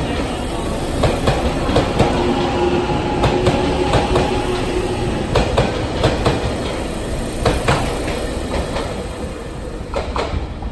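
JR Shikoku 8000 series electric express train pulling out past the platform, its wheels clacking over rail joints in regular pairs of clicks over a steady rumble, with a steady whine for a few seconds in the first half. The clacking grows fainter near the end as the last car goes by.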